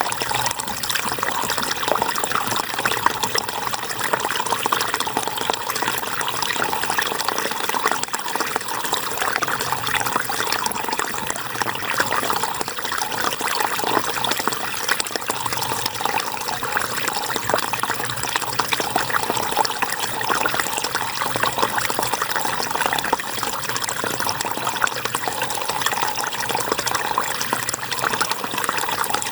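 River water flowing steadily over rocks, a continuous rush with small splashes and burbles throughout.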